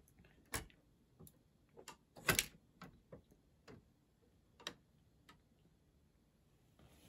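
Lego bascule bridge being lifted by hand: its plastic Lego parts give a dozen or so irregular clicks and clacks, the loudest a short clatter a little over two seconds in.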